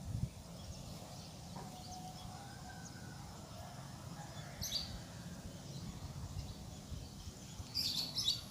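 Short high bird chirps, one about halfway through and a brighter cluster near the end, over a steady low rumble.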